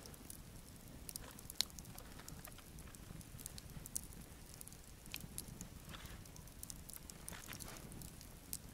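Wood campfire crackling, with scattered sharp pops, and a few soft rustles as raw chicken breast is laid on the wire grill grate.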